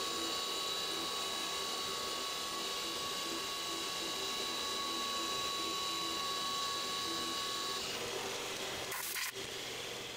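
CNC milling machine cutting a row of gas-block blanks under flood coolant: a steady spindle whine with an even, repeating mechanical pattern underneath. The whine stops near the end, followed by a brief clatter.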